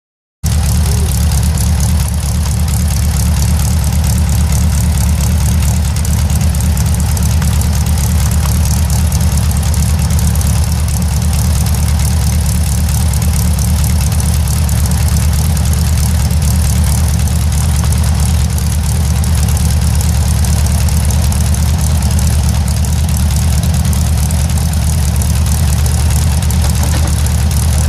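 Air-cooled Volkswagen-type flat-four engine idling steadily on a test stand through short open exhaust stubs. The sound cuts in abruptly just after the start.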